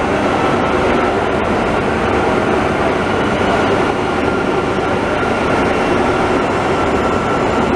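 Dean Smith and Grace CNC lathe running: a steady, loud mechanical noise with a faint even whine over it.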